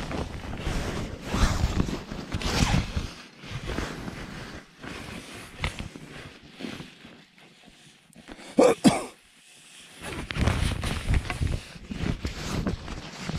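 Irregular rustling and scraping of tent fabric and snow being moved. It goes quieter for a few seconds in the middle, is broken by a short pitched rasp about nine seconds in, then grows busy again.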